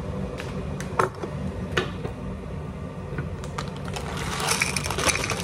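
A few light knocks as a plastic packet and a ceramic bowl are handled, then, from about four seconds in, dry oats poured from the packet into the bowl with a dense, crackly rattle.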